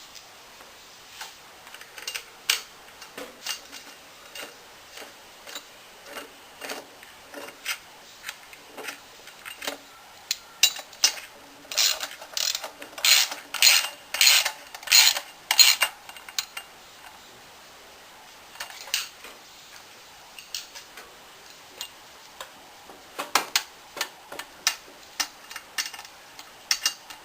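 Irregular metallic clicks and clinks of hand tools and small metal parts being handled while working on a small engine, thickest and loudest in a run of sharp clacks around the middle.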